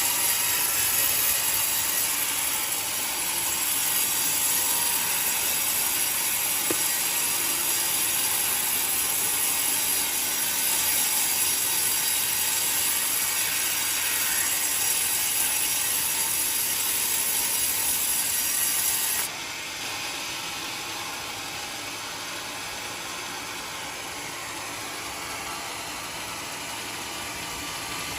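Sawmill cutting through coconut wood, a steady high-pitched cutting sound over the machine's running. About two-thirds of the way through the high cutting sound stops suddenly and only a lower steady machine running is left.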